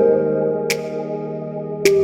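Ambient electronic background music: soft sustained synthesizer chords with a light percussive hit about a second in and another near the end.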